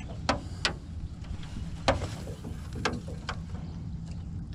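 A handful of short, sharp clicks and knocks, about five over four seconds, from fishing gear and a landing net being handled in an aluminium jon boat, over a steady low rumble.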